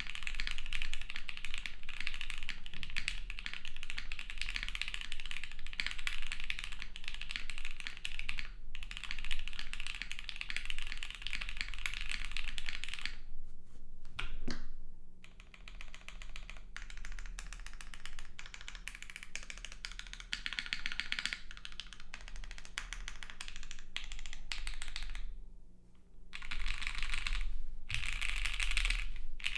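Studio Kestra Nue mechanical keyboard, built plateless on a 1.2 mm PCB with Oil King linear switches and GMK Ki keycaps, being typed on in steady runs of keystrokes. The typing thins out briefly about halfway through and again a few seconds before the end.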